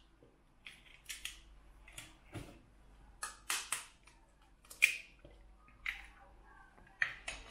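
Two eggs being cracked into a bowl of flour: a string of sharp taps and clicks from the shells against the bowl's rim, with the loudest knock about five seconds in.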